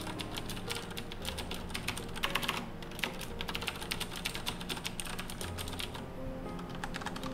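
Fast typing on a Razer BlackWidow mechanical keyboard with clicky Cherry MX Blue switches: a dense, uneven clatter of sharp key clicks.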